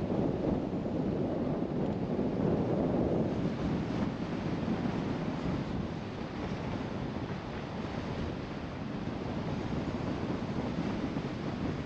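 Steady rushing road and wind noise from a car driving along, with no engine note standing out. It eases slightly about halfway through.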